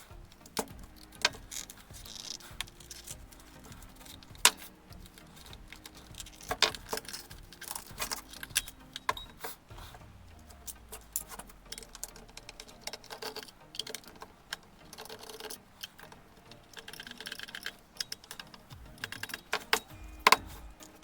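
Irregular clicks and taps of small tools, screws and the plastic case of a multimeter being handled as it is taken apart, over faint background music.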